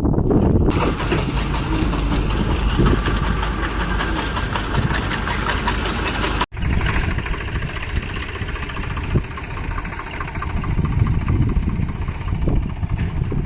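Panesar mini tractor combine harvester running steadily, its engine and threshing works making a loud, fast, continuous rattle. The sound cuts out for an instant about halfway through.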